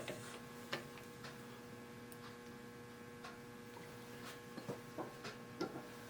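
Faint steady electrical hum, with a few light, irregularly spaced clicks and ticks.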